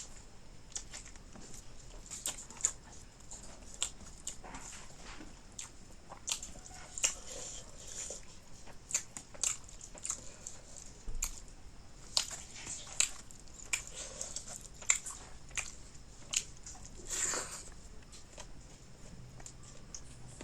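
Close-miked eating sounds of a person eating fish curry: irregular short wet smacks, chewing and crunches, with a slightly longer burst about three-quarters of the way through.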